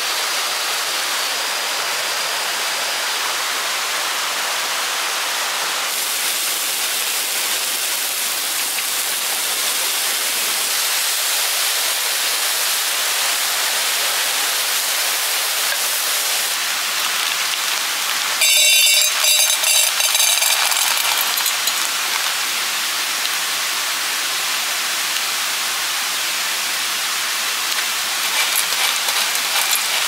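Steady rushing of a small mountain-stream waterfall. About two-thirds of the way through, a brief louder crackling burst lasting two to three seconds.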